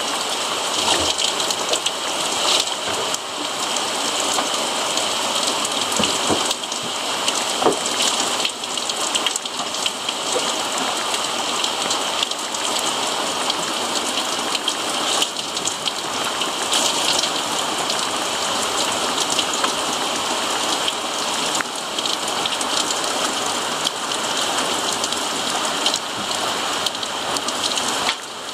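Rain falling steadily, with drops striking close to the microphone as scattered sharp taps.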